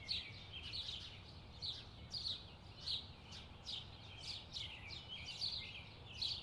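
Birds chirping: a steady run of short, high, falling chirps, about two a second, fairly faint.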